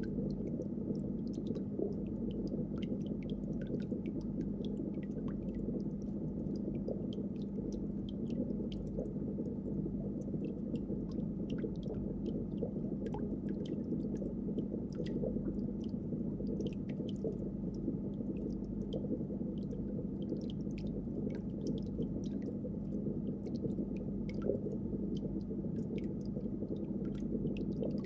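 Aquarium room ambience: a steady low hum with a soft haze of water noise beneath, dotted with faint, irregular ticks and clicks.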